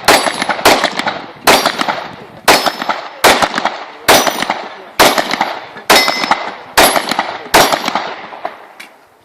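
A 9mm pistol fired in a steady string of about ten shots, roughly one a second, each crack followed by a long fading echo.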